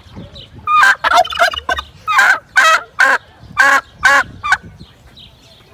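Domestic turkey gobbling: a run of loud, rattling gobbles that starts about a second in and lasts some three and a half seconds.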